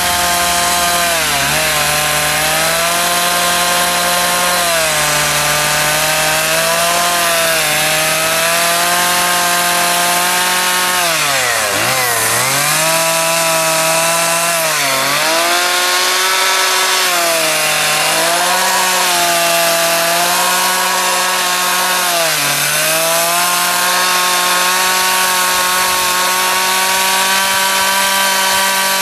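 Two-stroke chainsaw running at high revs while its bar tip carves into a wooden board. The engine note sags briefly every few seconds as the chain bites and loads it, most deeply about twelve seconds in, then climbs back.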